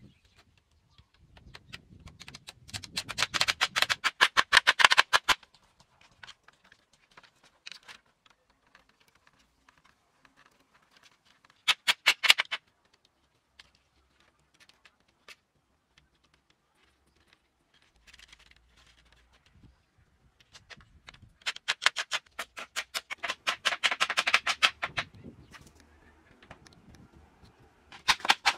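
Bamboo being worked by hand: rapid runs of sharp wooden taps, about eight a second, in bursts of one to three seconds with pauses between.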